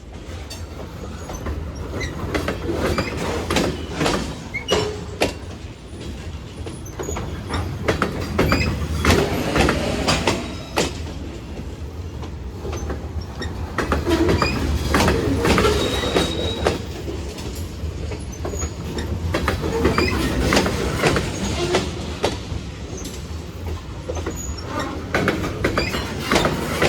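Union Pacific manifest freight train's cars rolling past: a steady low rumble with wheels clacking over rail joints, and a brief high wheel squeal about sixteen seconds in.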